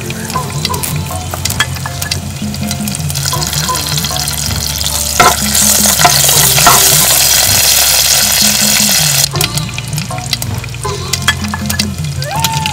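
Curry leaves frying in hot oil in a clay pot: a loud sizzle builds a few seconds in, with a spoon stirring and knocking against the clay, then cuts off suddenly about nine seconds in. Soft background music plays underneath.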